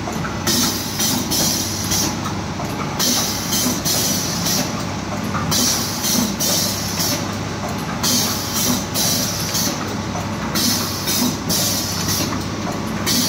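Yoghurt pouch packing machine running: a steady mechanical hum with a hiss that cuts in and out every second or so.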